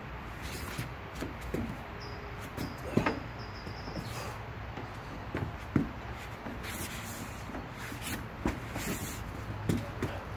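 Scattered soft knocks and scuffs of a person shifting feet and weight on a wooden deck and rubber mat during a Turkish get-up with a 5-gallon water jug, over a steady outdoor background hiss.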